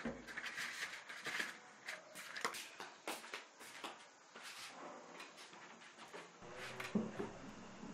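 Faint scuffs, taps and rustles of a person moving about a small room, likely stepping into flip-flops and settling at a desk. They come as an irregular run of short clicks, with a slightly louder knock about seven seconds in.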